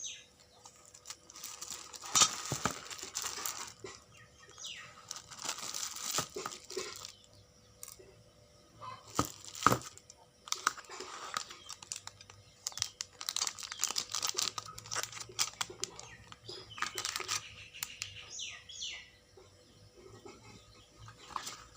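Packaging being handled and opened: irregular bouts of crinkling and tearing with sharp clicks, separated by short quiet gaps.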